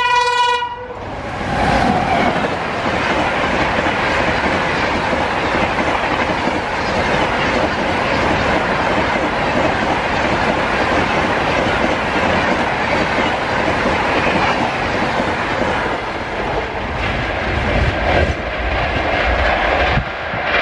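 An Indian Railways electric locomotive's horn, one steady note that cuts off about a second in, followed by a long express train of passenger coaches rushing past at speed with a steady, loud rush of wheels on rails.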